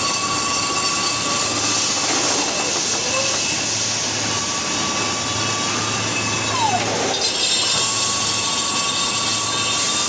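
Hot rolling mill running: a steady mechanical din with a low hum and a high hiss. A whine holds one pitch for a few seconds and then falls away, once near the start, once in the middle and once near the end.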